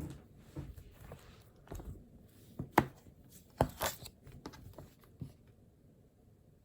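Things being handled at a study desk: scattered knocks and clicks with some rustling, the sharpest click about three seconds in and a rustle just before four.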